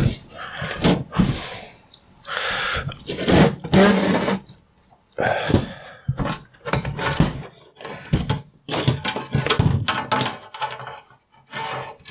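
Drake 2-B receiver chassis being pushed out of its case: irregular scraping and sliding of metal with several knocks and clunks.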